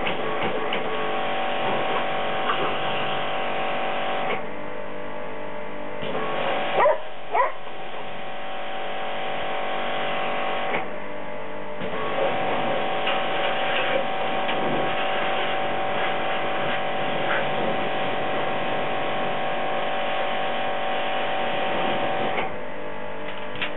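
Pressure washer running with a steady whine, stopping for a second or two twice and starting again. About seven seconds in, a dog barks twice, sharply and loudly.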